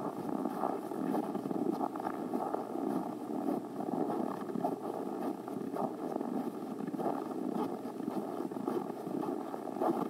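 Footsteps crunching through deep-frozen snow on a trodden path at −27 °C: a continuous rustling crunch with irregular louder steps.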